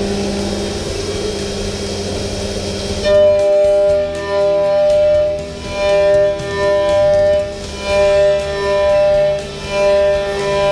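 OKK VC-X500 5-axis machining center running, a steady hum at first. About three seconds in, the milling cutter starts a high, steady-pitched whine that swells and fades about once a second as it cuts the block under flood coolant.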